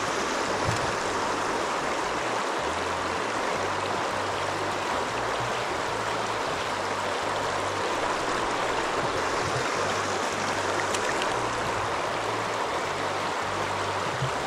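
River current rushing steadily, an even wash of flowing water.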